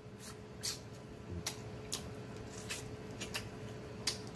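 Close-miked chewing and lip-smacking on baked chicken: a string of short wet mouth clicks, roughly two a second at uneven spacing.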